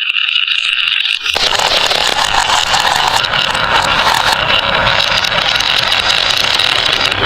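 Marbles rolling and rattling along a toy marble run track in a continuous loud rumble. A steady high ringing tone comes first, and the heavier rolling clatter takes over about a second in.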